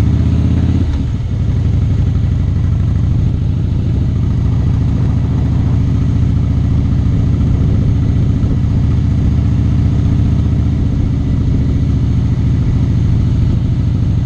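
Harley-Davidson V-twin motorcycle engine running under way, heard from the rider's seat. The engine note changes with a brief dip about a second in, then holds steady.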